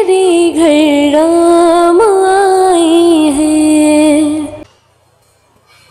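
A woman singing a Hindi devotional bhajan into a microphone: long, ornamented held notes with vibrato. The singing cuts off suddenly about three-quarters of the way through.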